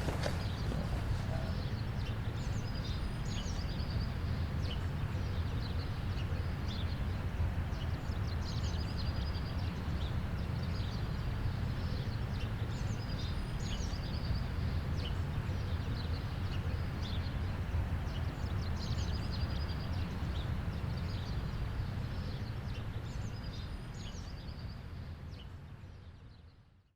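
Outdoor ambience: a steady low rumble with small birds chirping every few seconds, fading out near the end.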